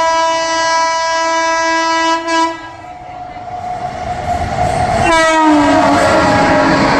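Locomotive horn of the Howrah–Tiruchchirappalli Superfast Express giving one long steady blast of about two and a half seconds. Then the rush of the train grows louder as it runs through the station at speed without stopping. A second horn blast starts about five seconds in, its pitch dropping as the locomotive passes.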